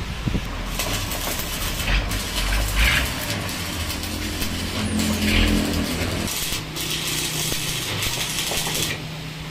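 Stick-electrode arc cutting into the steel rear axle housing of a truck: a steady crackling hiss from the arc, breaking off briefly about two seconds in and again near seven seconds, and stopping shortly before the end.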